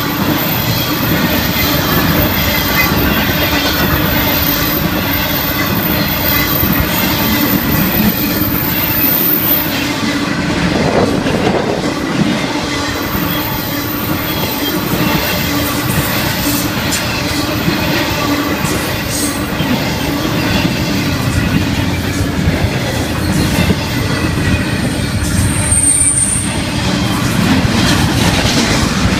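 Florida East Coast Railway freight train of autorack and intermodal cars rolling past, wheels clacking on the rails, with a steady squeal of wheels against rail running through the noise.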